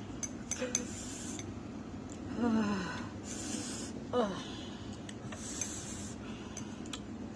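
A woman breathing hard against chilli heat while eating: sharp hissing breaths every two to three seconds, two short falling moans in the middle, and small mouth clicks near the start.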